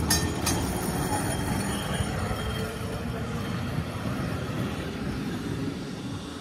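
Heritage tram running on rails: a steady rumble with two sharp clicks near the start, easing off slightly toward the end.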